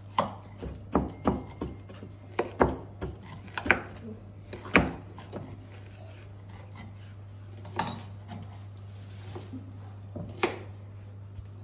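Knife chopping food on a cutting board: a run of irregular sharp chops for about five seconds, then only a few scattered ones, over a steady low hum.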